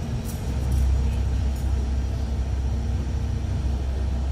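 A low, steady vehicle engine rumble, as from street traffic, swelling about half a second in and then holding.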